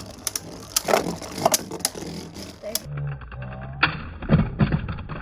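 Two Beyblade Burst spinning tops whirring in a plastic Beystadium, with several sharp clicks and knocks as they clash.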